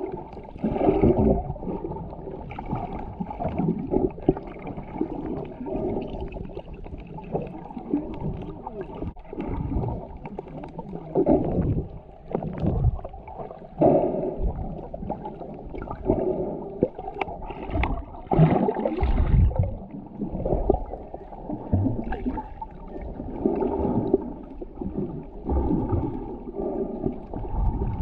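Muffled underwater water noise picked up by a camera held under the surface while snorkeling: a dull, irregular swishing and gurgling that swells and fades every second or two.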